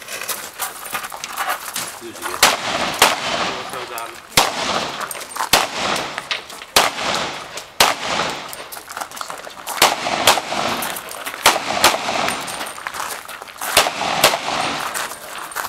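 A series of pistol shots during a practical shooting stage, fired singly and in quick pairs, with short gaps between groups of shots.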